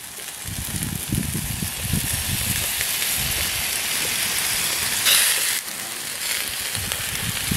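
Vegetables frying in a pan, a steady sizzling hiss that surges louder briefly about five seconds in.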